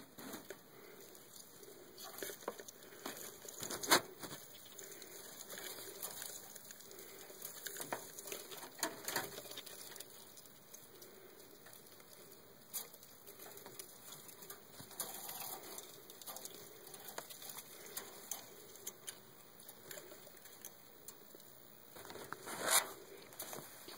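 Irregular light taps and rustles of handling and movement around a planted terrarium, with a sharper click about four seconds in and another near the end.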